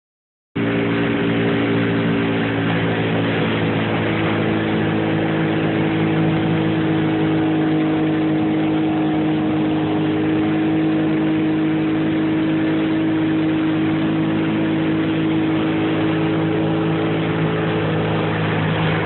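Boat engine running at a steady speed, a constant hum of evenly spaced tones with a rushing hiss over it.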